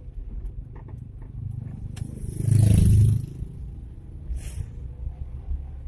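Suzuki Carry pickup's engine running with road noise, heard inside the cab as a steady low rumble. A little over two seconds in there is a brief loud rush lasting under a second, and a shorter, fainter hiss a little later.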